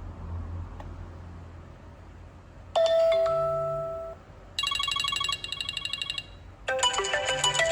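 iPhone X loudspeaker playing alert sounds after a no-sound repair. About three seconds in, a single chime fades out. A rapidly pulsing tone follows. Near the end, a melodic ringtone begins and carries on.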